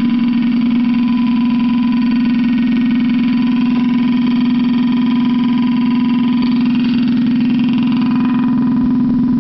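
Computer sounding a loud, steady, unbroken tone, set off by a cat lying asleep across the keyboard's keys.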